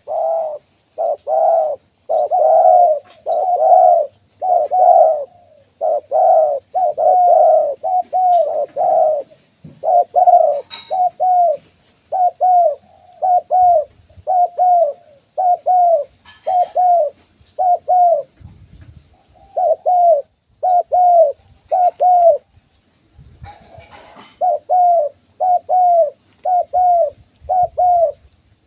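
Spotted dove cooing: low, hollow coo notes repeated in long runs, several notes in a row with only short gaps between them. The calling goes on almost without a break.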